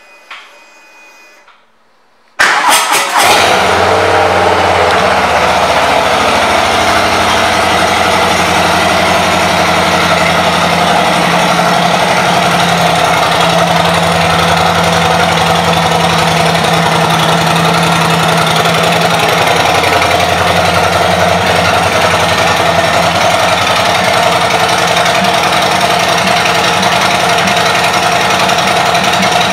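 2020 Harley-Davidson Street Bob's Milwaukee-Eight 107 V-twin, fitted with aftermarket exhaust pipes, is started about two and a half seconds in and then idles steadily and loudly.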